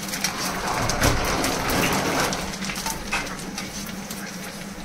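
Panipuri puris deep-frying in hot oil: a steady sizzle with crackling, loudest about a second in and easing off toward the end.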